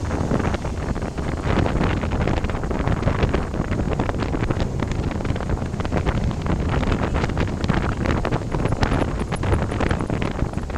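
Wind buffeting the microphone of a camera mounted on a moving motorcycle, a loud gusty rush with motorcycle engines running underneath.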